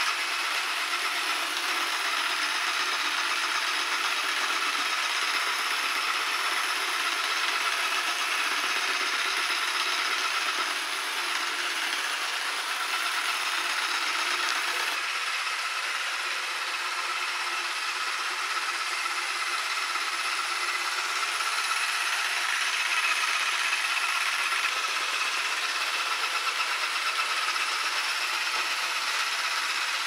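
Yeedi Vac 2 Pro robot vacuum running steadily in vacuum-and-mop mode on a hard floor: a constant motor whir.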